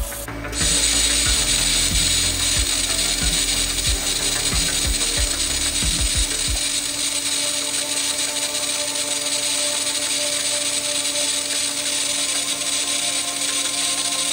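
TIG welding arc on 304 stainless steel pipe, striking about half a second in and then running with a steady hiss and buzz. Low knocks recur with it for the first six seconds or so.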